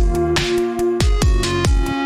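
Background electronic dance music: a steady kick-drum beat about two and a half times a second, under held synth chords and hi-hats.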